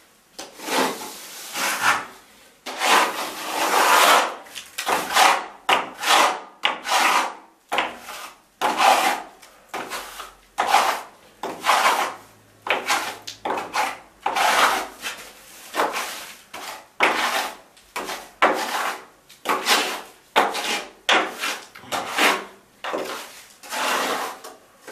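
A plastering float rubbed in repeated strokes over a fresh lime-based skim coat, a scraping rub at roughly one stroke a second.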